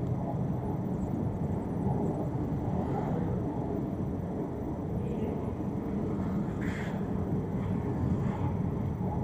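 Long escalator running, a steady low rumble of the moving steps and machinery heard while riding it down. A brief sharper sound comes about seven seconds in.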